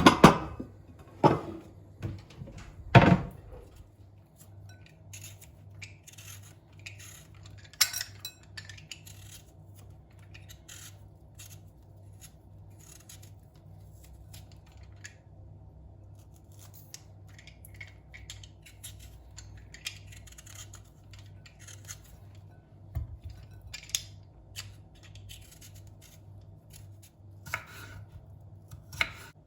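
Kitchen prep handling sounds: three loud clanks of kitchenware in the first three seconds, then scattered light clicks and taps of utensils, over a steady low hum.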